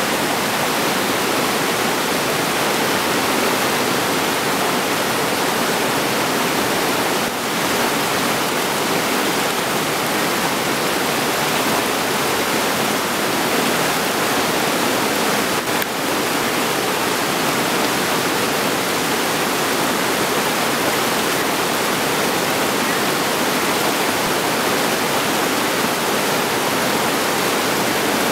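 Whitewater river rapids rushing over rocks: a loud, steady wash of water noise.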